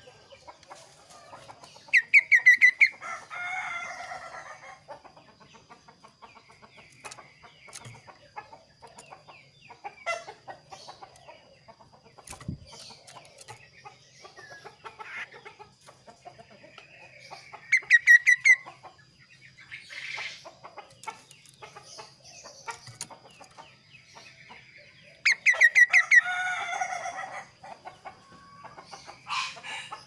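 Caged kaso-kaso songbird singing in three loud bursts, about 2 s, 18 s and 25 s in. Each burst is a quick run of repeated ringing notes that breaks into harsh chattering, with softer calls and light clicks in between.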